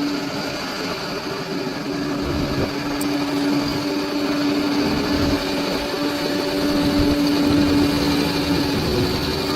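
Bulldozer's diesel engine running steadily under load, a steady drone that grows slowly louder.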